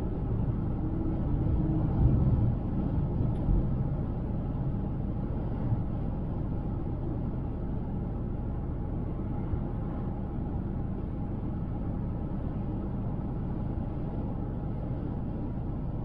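Steady road noise of a car driving at highway speed: tyre rumble and engine running together, with a few brief low thumps in the first few seconds.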